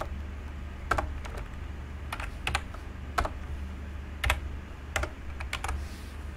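Computer keyboard being typed on: single keystrokes and short quick runs spaced about a second apart, over a steady low hum.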